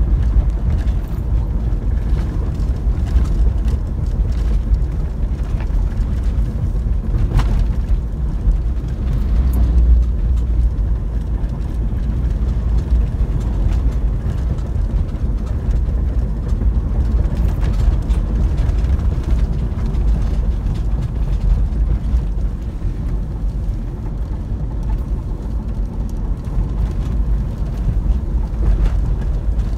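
Car driving along a wet road, heard from inside the cabin: a steady low rumble of engine and road noise.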